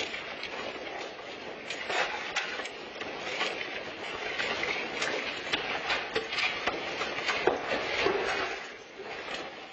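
Rattling and clattering of a room shaking in a magnitude 7.0 earthquake, with many sharp knocks over a steady rattle. It eases off near the end.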